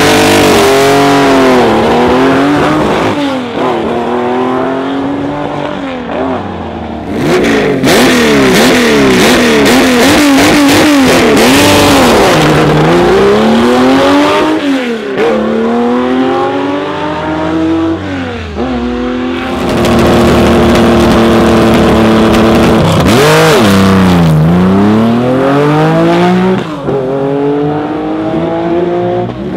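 Classic rally cars, Porsche 911s among them, accelerating hard one after another: engine pitch climbs and drops back with each gear change, with a few sharp dips and recoveries as they brake and pull out of corners.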